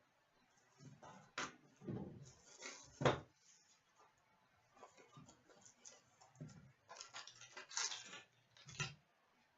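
Faint handling noises of a trading-card box and its packaging being opened: scattered rustling, light taps and clicks, with a few soft thuds.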